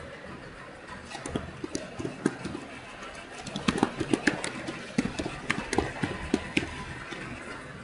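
Computer keyboard being typed on, a run of irregular key clicks from about a second in until near the end, over a steady low hum.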